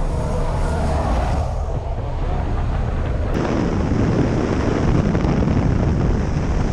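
Propeller plane's engine droning under heavy wind rushing past the open door. About three seconds in, the wind on the microphone turns louder and rougher as the jumper climbs out into the slipstream.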